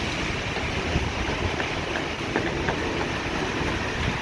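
Heavy rain on a city street: a steady hiss with scattered sharp ticks of drops and a low rumble beneath.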